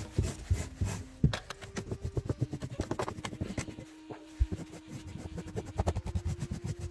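Portable lint remover raked quickly back and forth over car carpet to pull up dog hair: a fast run of short scraping strokes, several a second.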